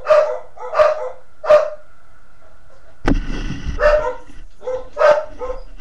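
Dog barking in short single barks, three in quick succession, then four more after a sharp knock about three seconds in.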